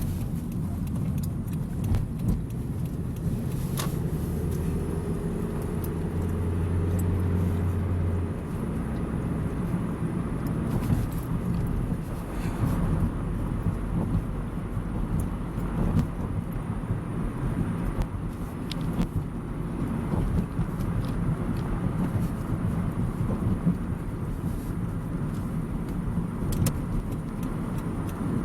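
Car in motion heard from inside the cabin: a steady low rumble of engine and road noise, with scattered light clicks and rattles.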